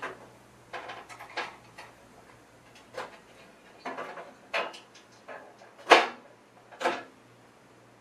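Irregular clicks and knocks of hands working in an IMSAI 8080 computer's card cage. The loudest knock comes about six seconds in and another just before seven, over a faint low steady hum.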